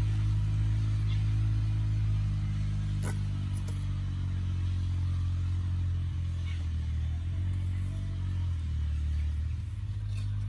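An engine running steadily with a low hum, its pitch stepping lower about seven seconds in. A sharp click sounds about three seconds in.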